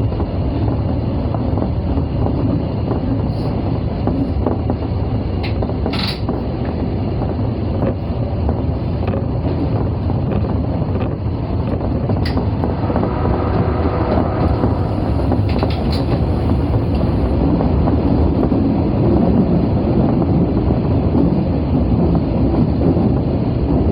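Osaka Metro 22 series subway train running, a steady rumble of wheels on rail heard from the front of the train, with a few sharp clicks along the way.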